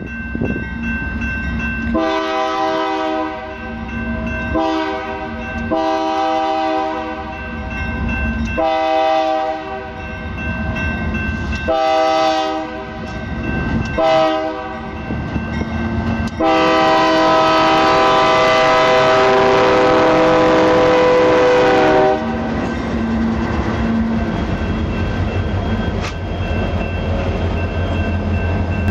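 Freight locomotive air horn sounding a series of blasts, some lasting a few seconds and some short, then one long held blast of about five seconds. The horn then stops and the passing freight cars rumble and clack over the rails.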